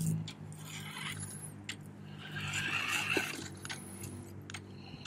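Toy RC truck with a small electric motor driving across grass: the whir of its motor and gears, with tyre rustle and scattered clicks, grows loudest about two to three seconds in as it passes close by.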